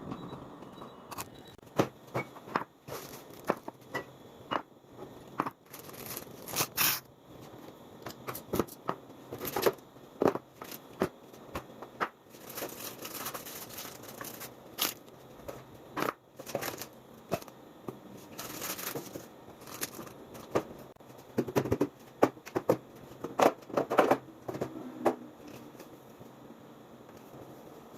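Irregular clicks, knocks and short rustling scrapes of objects being handled at close range, with the loudest cluster of knocks toward the end.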